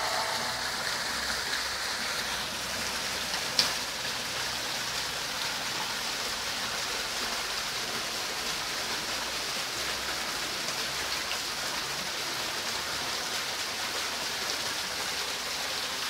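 Water falling in thin sheets and streams down the face of an artificial rock waterfall wall, a steady splashing hiss. A single sharp click about three and a half seconds in.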